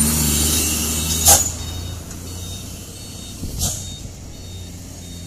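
A heavy vehicle's diesel engine running as it passes close by, loud at first and fading to a low rumble after about a second. There is a short sharp noise as it goes, and another one near four seconds in.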